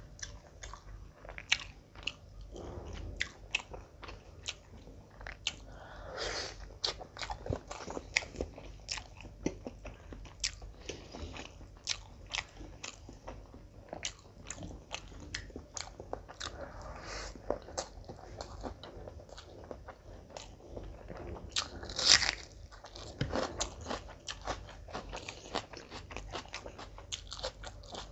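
Eating sounds of mutton biryani and curry eaten by hand: wet chewing and lip smacking in quick, irregular clicks, with one louder sharp smack about 22 seconds in.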